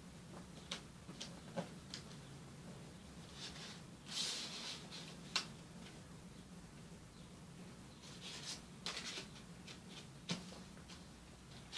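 Sheet of origami paper being folded and creased by hand: soft rustles and crinkles with small sharp clicks, a longer rustle about four seconds in and another cluster of crinkles near nine seconds.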